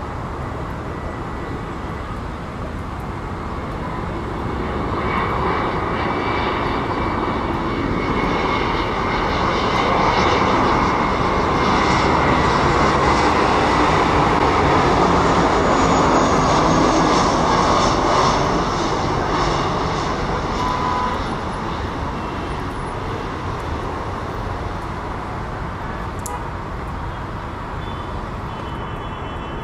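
Airbus A320-214 airliner's CFM56-5B turbofan engines on final approach. A jet rumble with a high fan whine on top builds as the plane passes close by, is loudest in the middle stretch, then fades as it descends toward the runway.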